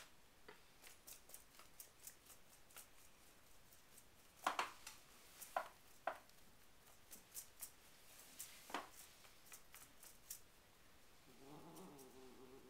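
Domestic cat making odd noises: short breathy huffs scattered through, which the owner calls panting, then a low, wavering drawn-out moan near the end.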